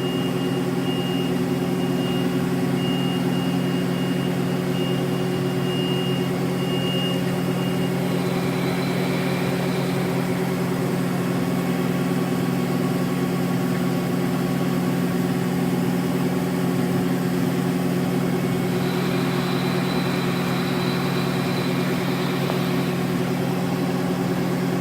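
Chip conveyor of a 1995 Mazak Slant Turn 60 CNC lathe running on test: a steady machine hum, with a faint high whine that comes and goes.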